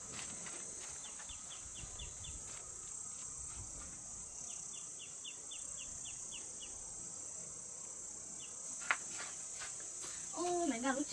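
Steady, high-pitched drone of insects in dry grassland, with two short runs of quick, repeated high chirps in the first half.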